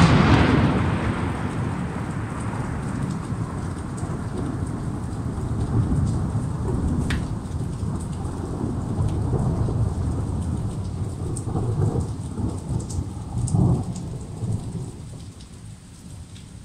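A loud thunderclap breaks right at the start, then rolls and rumbles on for about fifteen seconds, swelling again near the end before it fades. It is thunder from a lightning strike close by, following the flash by about two seconds. Steady rain falls throughout.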